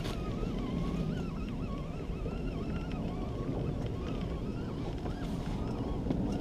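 Wind on the microphone and sea noise around a small open boat, a steady low rumble, with a faint wavering high whine over it.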